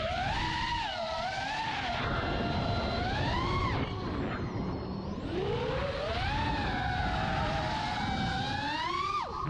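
FPV quadcopter's T-Motor F40 IV brushless motors on a 6S battery, whining and sliding up and down in pitch with the throttle. Partway through, the whine falls away briefly as the throttle is cut, then climbs back.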